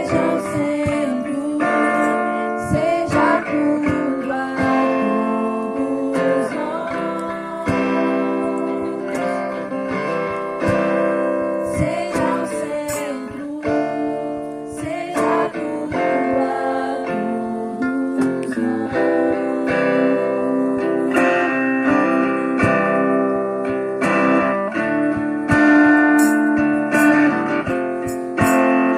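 Worship song with guitar and singing voices.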